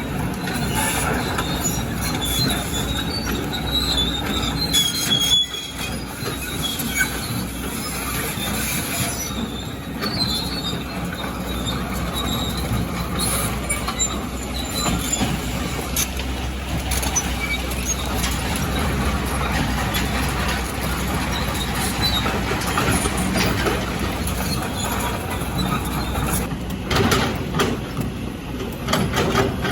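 Hydraulic excavator working: its diesel engine runs steadily under dense scraping and grinding, with short high metal squeals about four to five seconds in and again near ten seconds.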